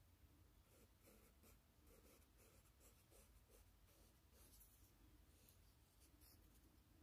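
Faint scraping and rubbing of a wooden craft stick spreading epoxy resin in a silicone coaster mold: a run of quick strokes, about three a second, that stops about halfway through.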